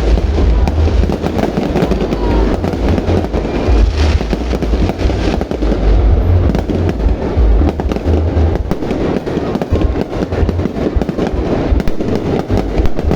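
Fireworks display: a dense, unbroken barrage of booming bursts and crackles.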